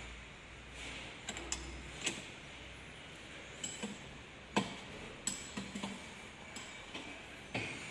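Scattered light clicks and a few sharper knocks at irregular intervals, over a faint low hum that fades out about two seconds in.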